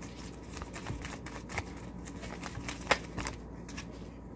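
A deck of tarot cards being shuffled by hand: soft, irregular card clicks and slides, with one sharper click about three seconds in.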